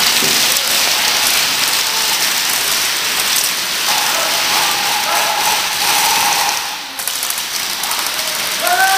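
Many airsoft guns firing at once in rapid bursts, a dense crackling patter of shots and BB hits echoing through a warehouse hall. Shouting voices cut through around the middle, and the firing dips briefly about seven seconds in.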